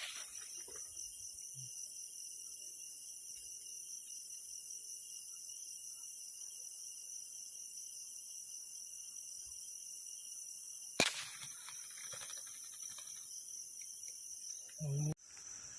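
Steady night chorus of crickets and insects, broken about eleven seconds in by a single sharp shot from a PCP air rifle taking down a zebra dove. Near the end come a couple of low knocks and the sound cuts off suddenly.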